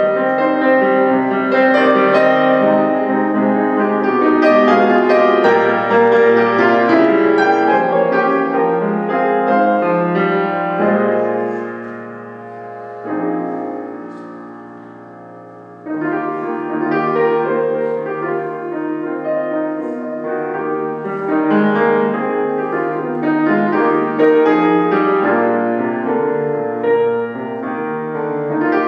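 Solo piano playing a classical piece. About halfway through the playing drops to a softer, held passage, then picks up again at full strength.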